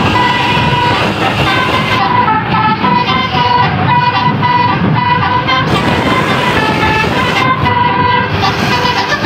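Tour bus's multi-tone telolet horn playing a melody of quick stepped notes, with vehicle rumble beneath.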